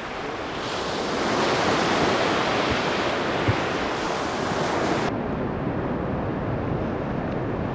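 Surf: sea waves breaking and washing in a steady rush that swells over the first couple of seconds, then turns suddenly duller about five seconds in.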